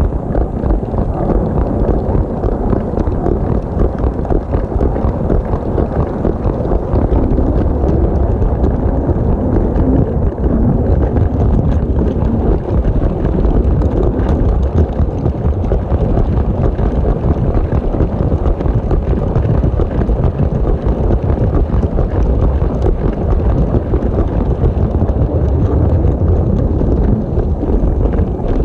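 Motorised LEGO BR 01 steam locomotive model running on plastic LEGO track, heard up close from on board: a steady rumble of the electric train motor with a dense rattle of plastic wheels over the track.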